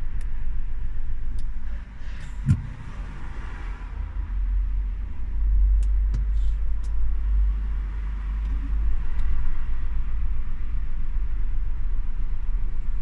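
Low rumble from a Renault Grand Scenic's 1.6 dCi diesel, with a single sharp click about two and a half seconds in and growing louder from about five seconds in.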